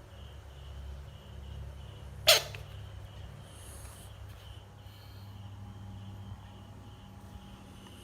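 A frog gives one loud, short, harsh call about two seconds in, over a steady low hum and a faint high chirp repeating about twice a second.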